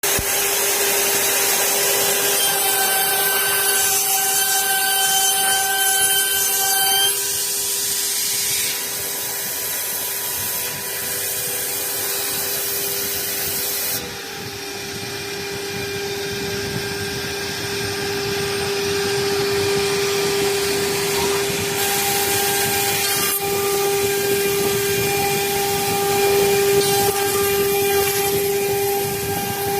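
Automatic edge banding machine running: a steady motor hum under a rough cutting and trimming noise as wood panels are processed. The sound changes abruptly about a quarter, halfway and three quarters of the way through.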